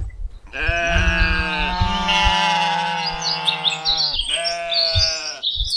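Sheep bleating: one long call lasting several seconds, then a shorter second one, with bird chirps over the end.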